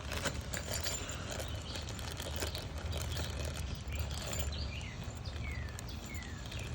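Light rustles and clicks of handling over a low steady rumble; from about four and a half seconds in, a bird gives a series of short falling chirps, roughly one a second.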